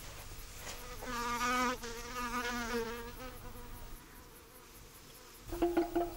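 A fly buzzing for about two seconds, starting about a second in, its pitch wavering. Near the end, music with a regular beat begins.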